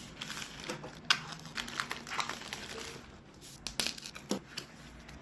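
Packaging crinkling and rustling as a parcel is handled and unwrapped, with irregular sharp clicks, the loudest about a second in.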